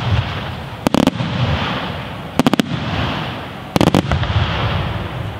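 Aerial firework shells bursting overhead in three quick clusters of several sharp bangs, about a second and a half apart, over a continuous rumble.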